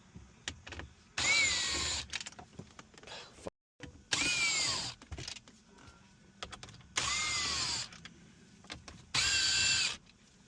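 Cordless power driver run in four short bursts, each with a motor whine that bends in pitch, as it backs out the screws holding the radio unit in the dash. Small clicks and handling noises come between the bursts.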